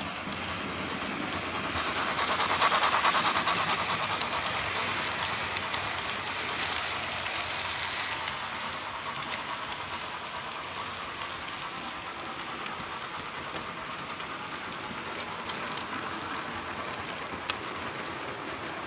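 Model trains running on a model railway layout: wheels rumbling and clicking over the track, loudest as a train passes close to the microphone about two to four seconds in. There is a single sharp click near the end.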